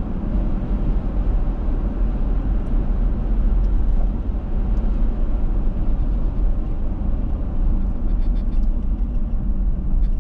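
Steady low rumble of a car driving at road speed, heard inside the cabin: tyre and engine noise.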